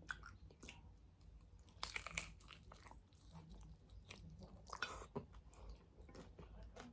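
Close-up chewing of a crunchy fried corn tortilla with chicken filling: soft crackling crunches and mouth sounds, with the loudest crunches about two seconds in and again near five seconds.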